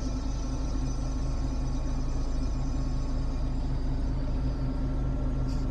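A 2007 car's air conditioning running with an abnormal noise: a steady hum with thin, high, constant whining tones above it, over the engine.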